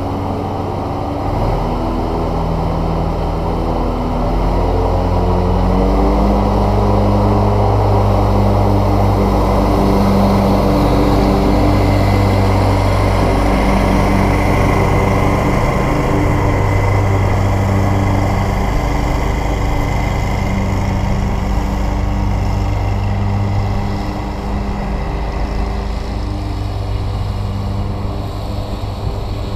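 Scag Cheetah zero-turn riding mower running with its blades cutting grass. The engine note wavers in pitch every few seconds as it works. It is loudest as the mower passes close, about a third of the way in, and gets a little quieter near the end as it moves off.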